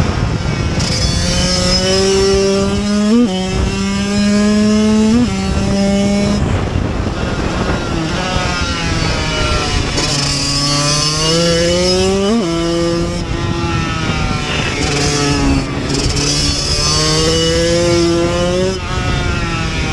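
Kawasaki KX85's 85 cc two-stroke single-cylinder engine, heard from on the bike, revving up through the gears and dropping back on and off the throttle, its pitch climbing and falling several times. Wind rushes over the microphone throughout.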